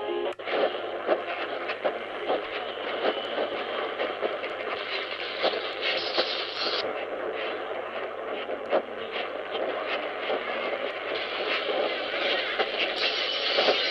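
AM radio static from the Qodosen SR-286's speaker tuned to 846 kHz on medium wave: hiss and constant crackling, with no clear programme audio. Just after the start the music of the previous frequency cuts off as the tuning steps away. About 7 s in the sound turns duller, and it brightens again near the end, as the bandwidth filter is switched.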